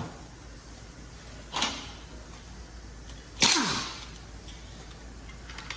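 Two sharp knocks of metal caliper parts or tools being handled, about two seconds apart, the second one louder.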